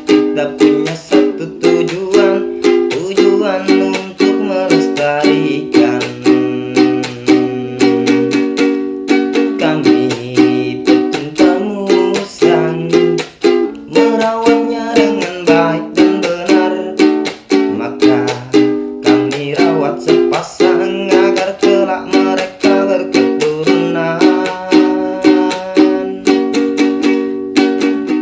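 Ukulele strummed in a steady, driving rhythm, with a man singing along.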